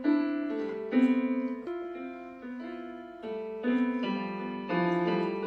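Background piano music: a slow melody of single notes and chords, each note sounding and fading before the next.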